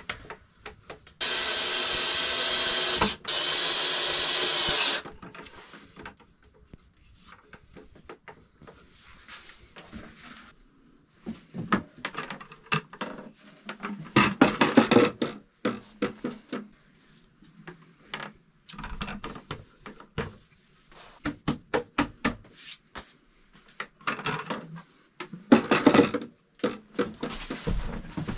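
Cordless drill running in two steady bursts of about two seconds each, with a brief break between them. After that come irregular knocks and scrapes of a wooden board being handled and set down.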